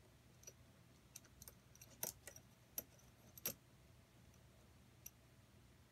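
Small metal parts of a home-built air engine being handled and fitted by hand: a scattered series of faint, sharp little clicks and taps, the loudest about two and three and a half seconds in, over near silence.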